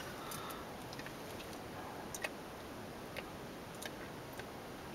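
Quiet room with a few faint, scattered clicks and ticks.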